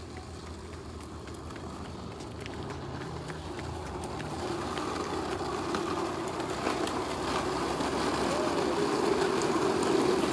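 Plastic wheels of a child's ride-on toy rolling over rough concrete, a steady grinding noise that grows louder as it comes closer, with scattered small clicks.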